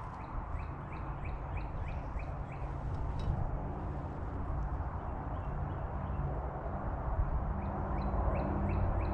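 A bird calling in a quick series of short, rising chirps, about three a second, which stop for a few seconds midway and then start again, over a steady low rumble.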